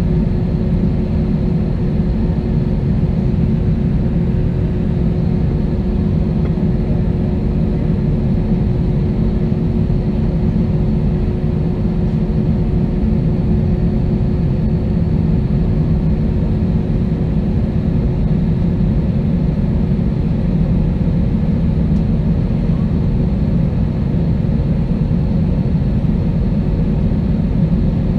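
Airbus A320-232's IAE V2500 turbofan engines at idle, heard from inside the cabin: a steady low drone with a thin constant hum over it.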